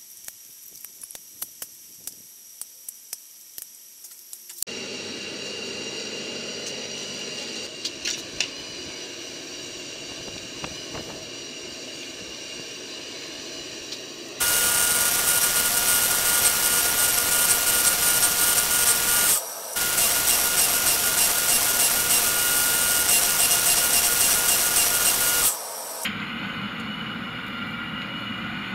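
Small metallic clicks as steel file and band-saw-blade strips are stacked together. Then comes the steady hiss of a propane forge burner, much louder for about ten seconds in the middle, with one brief break.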